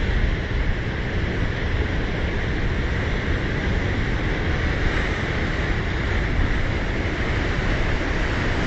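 Steady rush of ocean surf breaking and washing around shoreline rocks, with wind rumbling on the microphone.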